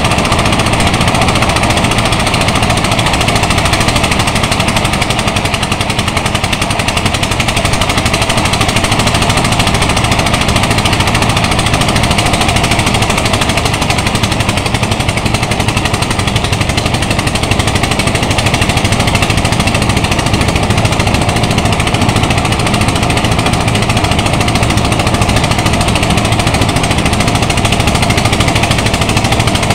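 Engine-driven rice thresher running steadily while threshing rice stalks, a loud mechanical din with a fast, even pounding beat from its engine.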